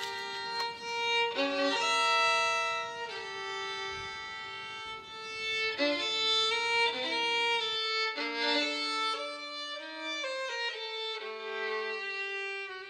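Violin music with long held bowed notes, two or more lines sounding at once. About eight seconds in the lower line drops out, leaving only higher notes.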